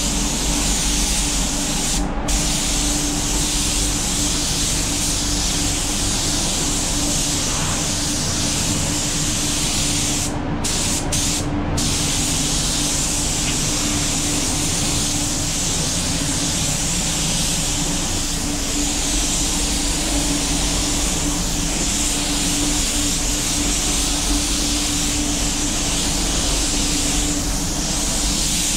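Compressed-air hiss of a gravity-feed spray gun laying on acrylic primer wet-on-wet. The hiss breaks off for a moment about two seconds in and a few times around ten to twelve seconds in, as the trigger is released between passes. Underneath is the steady hum of the spray booth's ventilation.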